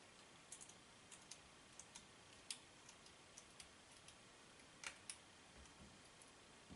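Faint, irregular light clicks of a small PH00 Phillips precision screwdriver turning out a tiny screw from a plastic camera back cover, about a dozen ticks with two sharper ones around two and a half and five seconds in.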